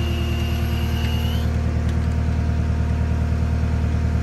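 Cat 259D3 compact track loader's diesel engine idling steadily, with a high, thin whine that cuts off about a second and a half in.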